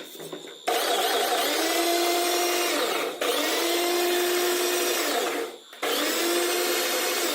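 Bajaj food processor's electric motor run in three bursts of about two seconds each, each time quickly winding up to a steady whine, with brief stops between: test runs after the drive pulley and belt repair.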